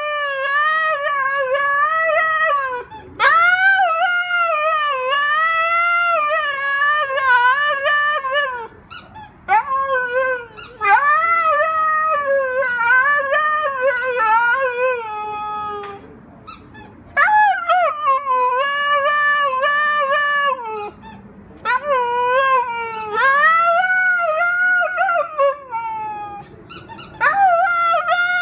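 Siberian husky singing: long, wavering howl-like phrases that slide up and down in pitch, about five of them with short breaks in between.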